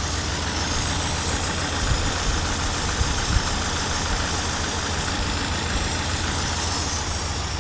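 Nissan SR20DET four-cylinder idling roughly with an uneven, lumpy low rumble. It is misfiring on cylinder two, where unplugging the coil pack makes no difference to the idle. A steady hiss runs alongside, and the owner suspects an air leak in the engine bay.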